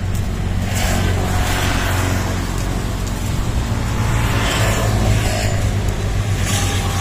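Road traffic going by: a steady low hum with a few swells as vehicles pass.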